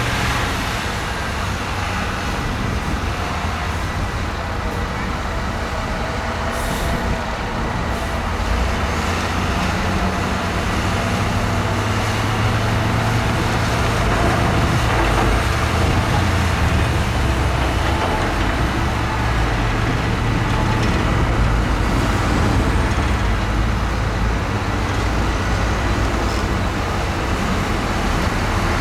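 Heavy diesel earth-moving machinery at work: a steady low engine drone under rough mechanical noise, swelling a little now and then.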